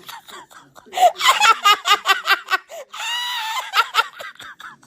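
A person laughing hard in a rapid run of short bursts, then a high-pitched squeal held for most of a second, and a few more bursts of laughter.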